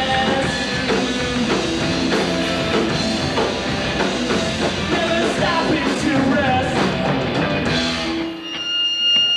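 Live rock band (electric guitar, bass guitar and drum kit) playing loudly; about eight seconds in the band stops and a high steady tone rings on.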